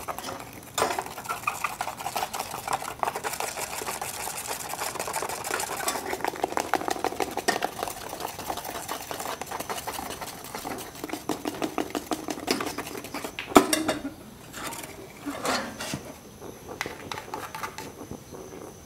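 A stick stirring melted sugar in a small metal ladle, making quick, dense clicking and scraping against the metal. About two-thirds of the way through there is one loud knock, followed by sparser clicks.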